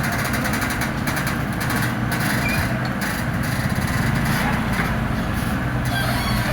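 Komatsu excavator's diesel engine running steadily.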